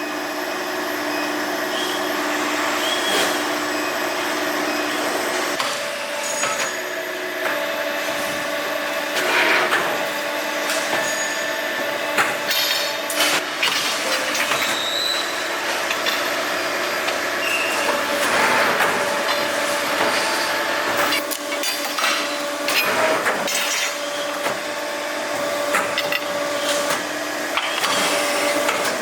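Factory workshop machinery running with a steady hum, broken by frequent metallic clanks and knocks.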